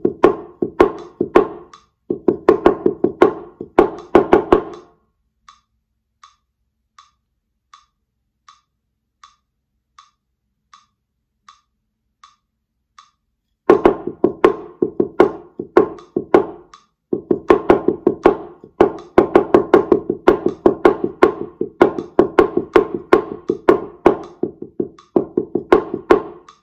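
Shime daiko struck with wooden bachi in fast runs of sharp, ringing strokes. It falls silent for about eight seconds after the first few seconds, leaving only a metronome ticking about 80 beats a minute: the rest where the chu daiko's answering phrase would go in the call-and-response. The drumming resumes and runs to the end.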